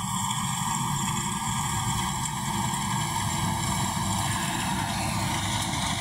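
Combine harvester running steadily under load as it cuts and threshes ripe rice, its engine and machinery making a continuous mechanical noise.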